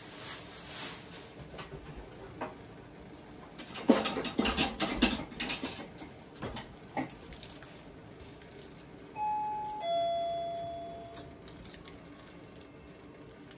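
Metal kitchenware clattering, then a two-tone doorbell chime about two-thirds of the way through: a higher note and then a lower one that fades out, the 'pin-pon' of an intercom doorbell.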